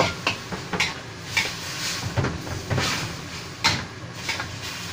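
Metal spatula scraping and knocking against a wok while pork slices and pao chai are stirred, a stroke about every half second.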